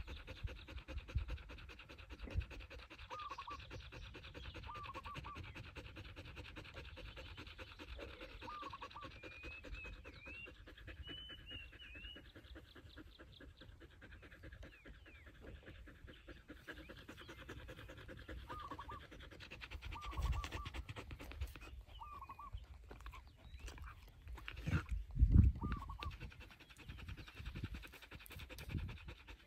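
A dog panting fast and steadily with its mouth open. Short high chirps come every few seconds, and there are a couple of brief low thumps in the second half.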